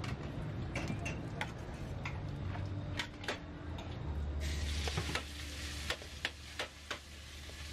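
Metal spatulas scraping and clanking against a large wok as stir-fried noodles with beef, bean sprouts and greens are tossed, over the steady sizzle of hot oil. Sharp clanks come every second or so, and a low steady hum joins about halfway.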